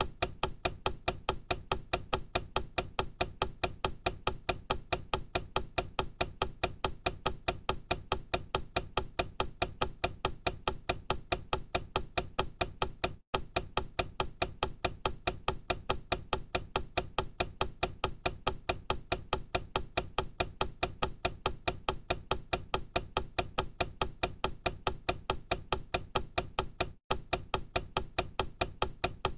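Time-bomb clock ticking sound effect: a steady, fast run of even, sharp ticks, broken by a brief gap twice.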